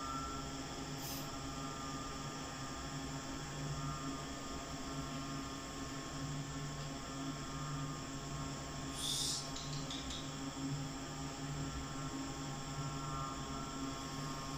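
A steady low hum with a few faint steady tones above it, like a running appliance or fan. A short hiss comes about nine seconds in.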